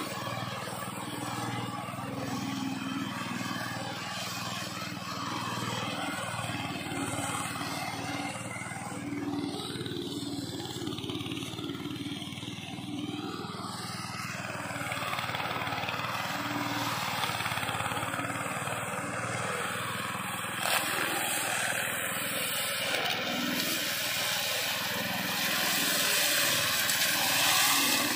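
Small engine of a modified push lawn mower running steadily, getting louder in the second half.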